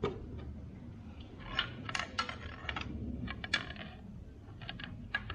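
Metal hand tools clicking and clinking irregularly against the power steering pump and its bracket while the belt is tensioned and the bolts are tightened. There is a sharp click at the very start, then scattered groups of short clinks.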